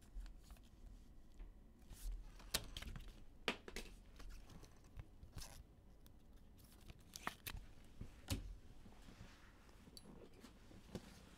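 Plastic trading-card pack wrapper being handled and torn open: faint, irregular sharp crackles and crinkles.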